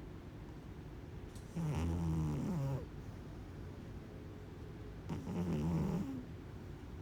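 Kitten snoring: two separate snores, each about a second long, one about a second and a half in and the next about five seconds in.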